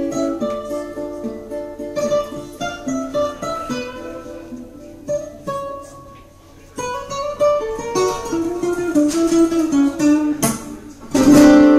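Solo cuatro playing a joropo piece: quick plucked notes that fall quiet about halfway through, pick up again, and end on a loud strummed chord near the end.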